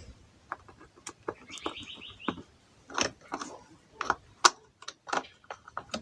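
A series of irregular clicks and light taps, with a short, high chirp about two seconds in.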